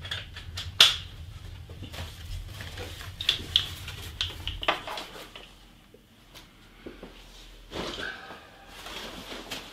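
Scattered clicks, knocks and rustling of a hiking backpack being fetched and handled, the loudest click just under a second in. A low hum runs underneath and stops about halfway.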